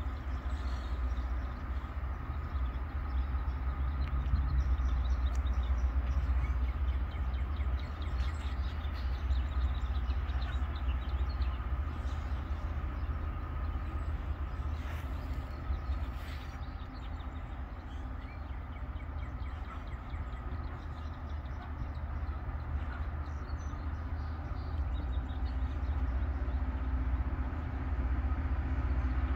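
Rail grinder at work on the track some way off: a steady drone of its engines and grinding stones on the rail, with a held whine running through it.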